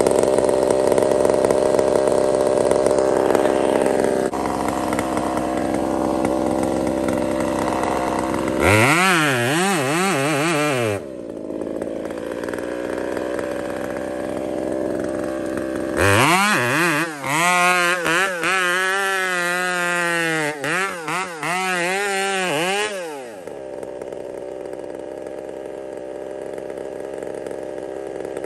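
Husqvarna 372XP two-stroke chainsaw running at low speed, blipped to high revs for about two seconds near the nine-second mark, then held at full throttle for about seven seconds while cutting into a large tree trunk, the pitch wavering as the chain loads up in the wood, before dropping back to idle.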